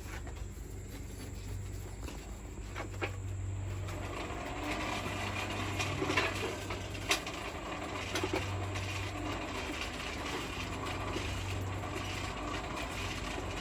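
A steady low hum under a hiss that grows louder a few seconds in, with a few sharp clicks scattered through it.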